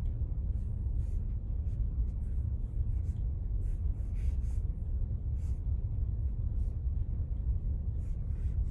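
Charcoal stick scratching on drawing paper in short, irregular strokes, faint over a steady low rumble.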